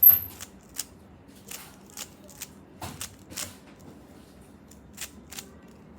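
Plastic speed cube layers being turned by hand: a dozen or so quick, irregular clicks, the sharpest one right at the start.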